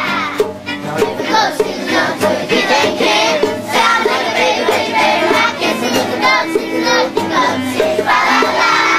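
A song with voices singing over bongo drum accompaniment.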